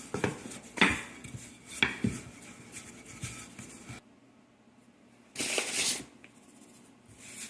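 Kitchen clatter from making fresh pasta dough: a few sharp knocks of utensils or tools on a work surface, the loudest two about a second apart. After an abrupt cut about halfway through, there is one brief scraping rub.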